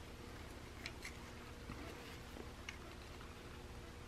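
A few faint, scattered small clicks of steel parts and a punch against a 1911 pistol frame as it is worked on during reassembly, over a low steady hum.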